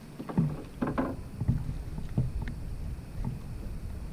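Water slapping and knocking against a small fishing boat's hull, several irregular thumps over a low rumble.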